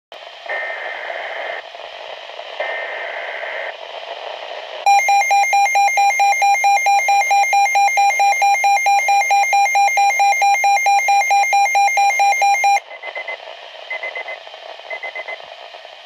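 Weather radio emergency alert tones: two bursts of buzzing digital SAME header data, each about a second long. Then a loud electronic alarm beeps rapidly, about five times a second, for some eight seconds, and three short data chirps follow.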